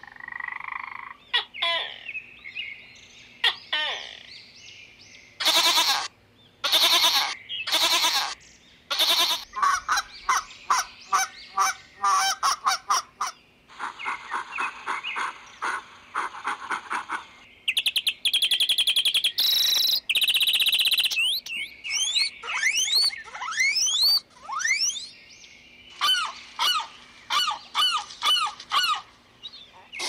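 A run of different animal calls one after another, with no single animal throughout. Frogs croak at first. Then come loud pitched calls, a rapid buzzing chatter, and in the last third many quick rising and falling chirps.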